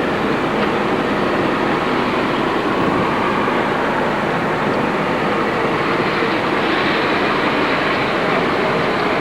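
A train rolling along dockside tracks, making a steady, even rolling noise with no distinct clanks or squeals.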